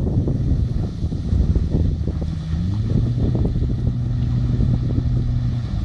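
Mercury 40 water-jet outboard motor running steadily on the boat, its pitch shifting slightly about two and a half seconds in, with wind on the microphone.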